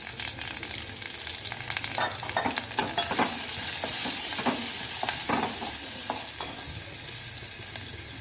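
Chopped onions frying with a steady sizzle in hot oil and ghee in a stainless steel pot. A steel spoon stirring them scrapes and clinks against the pot in quick strokes from about two seconds in until about six and a half seconds in, and the sizzle is loudest while they are stirred.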